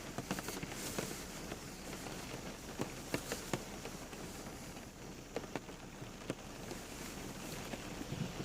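Steady rain with individual drops ticking and pattering on a hard surface at irregular intervals.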